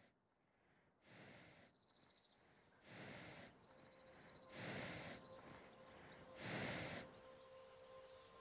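A horse breathing out through its nostrils: four slow breaths, about one every two seconds, each a little louder than the last.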